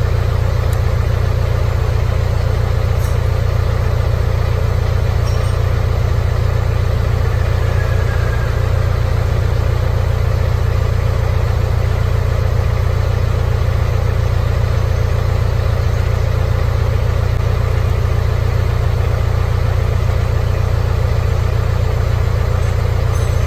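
Hino Ranger truck's diesel engine idling steadily.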